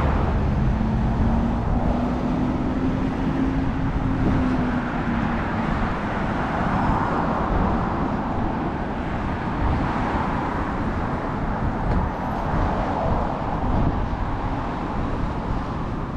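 Steady road traffic noise from cars passing on the multi-lane street alongside. A low hum runs through the first five seconds, and the noise swells gently a few times as vehicles go by.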